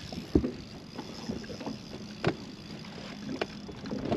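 Knocks and bumps on a fishing boat over a steady background: a sharp one about half a second in and another a little past two seconds, with lighter taps between.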